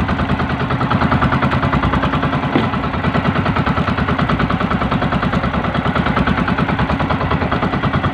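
Small outrigger boat's engine running steadily, a fast, even putter.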